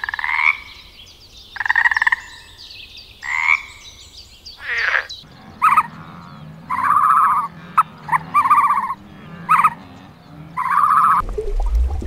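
Green water frog croaking: repeated short rattling croaks, about one every second and a half. About five seconds in, the background changes to a steady low hum, and more short croaking calls go on over it until near the end.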